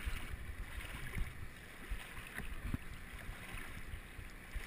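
A person wading across a shallow river, water sloshing and splashing around the legs in uneven strokes over the flow of the current.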